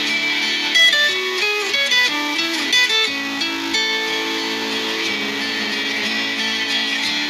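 Nokia N86 ringtone playing: a tune of plucked guitar notes over a held lower accompaniment.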